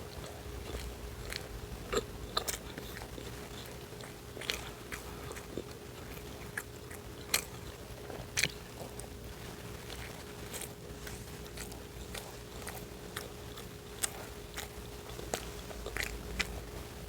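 Close-miked eating: a person biting and chewing food, with many small crunches and sharp wet clicks scattered irregularly throughout.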